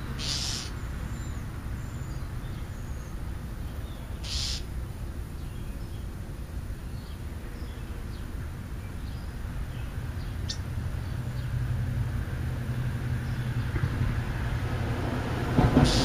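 Low steady rumble that grows louder toward the end. Over it come two short harsh calls from the feeding birds, one at the start and one about four seconds in, and a faint thin chirp near ten seconds.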